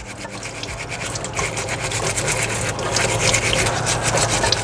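Steel wool scourer scrubbing the shell of a mud crab under running tap water: quick, repeated scraping strokes over the steady hiss of the water stream, growing louder. It is mud being scrubbed out of the crab's edges.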